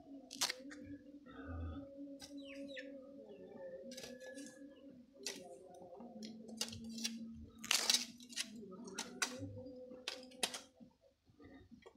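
Garden hoe chopping into and scraping through soil: irregular dull strikes about once a second. Birds chirp now and then.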